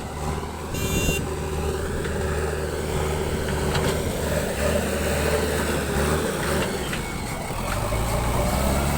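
JCB 3DX backhoe loader's diesel engine running steadily under working load, with a short high squeal about a second in and a couple of faint knocks.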